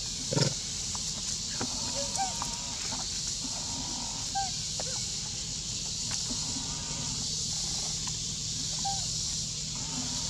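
Outdoor forest ambience: a steady high-pitched insect drone, with a few short arching chirp-like animal calls and a single soft thump about half a second in.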